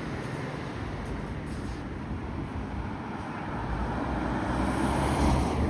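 Road traffic noise, with a vehicle passing close by that swells to its loudest near the end and then eases.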